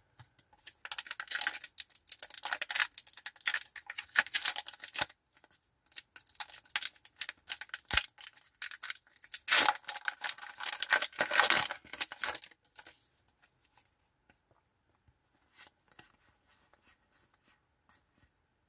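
Foil wrapper of a Pokémon booster pack crinkling and being torn open by hand, in two long spells of crackly tearing. In the last few seconds there is only faint rustling as the cards are handled.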